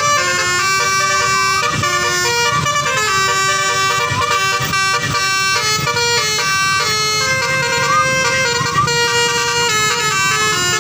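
Bus "telolet" horn, a multi-tone basuri horn, playing a tune of quick changing notes without pause.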